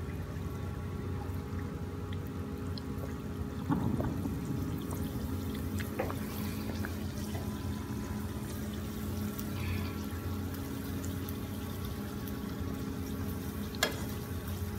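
Dough buns frying in hot oil in a pan: a steady bubbling sizzle, with a few short sharp clicks.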